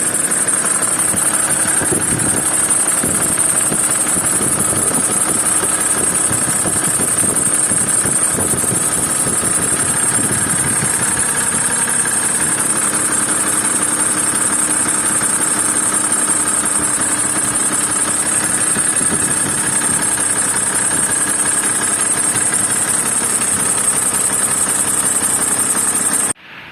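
Mitsubishi Pajero Sport 3 engine idling with a steady high-pitched whistle from the alternator belt tensioner pulley, the sign of a faulty tensioner pulley. The sound cuts off suddenly near the end.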